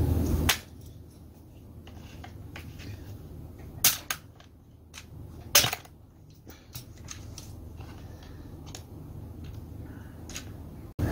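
Hand tools and small metal parts clicking and clacking against a STIHL MS180C chainsaw and the workbench while its carburetor is being taken off, with two loud sharp clacks about four and five and a half seconds in. A steady low rumble stops about half a second in and comes back just before the end.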